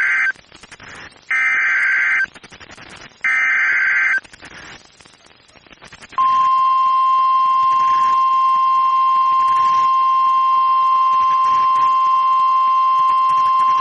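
NOAA Weather Radio Emergency Alert System signal: the end of one SAME header data burst, then two more identical buzzy data bursts, each about a second long and two seconds apart. After a short pause, the steady single-pitch 1050 Hz weather alert tone starts about six seconds in and holds.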